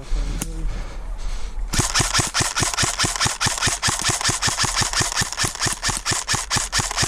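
Airsoft gun firing a long steady string of rapid shots, about six a second, starting close to two seconds in after a brief low rumble on the microphone.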